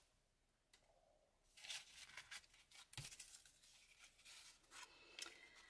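Faint rustling and scraping of painted cardboard tags being gathered into a stack and handled, with a light knock about three seconds in.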